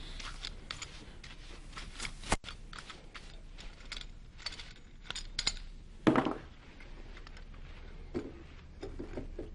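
Handling noise on a mini wood lathe: a hand brush sweeping the bed and the metal tailstock being moved, giving scattered clicks and light clatter, with a sharp click about two seconds in.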